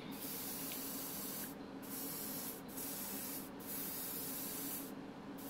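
Airbrush spraying paint: a steady hiss, broken four times by short pauses, with a low steady hum underneath.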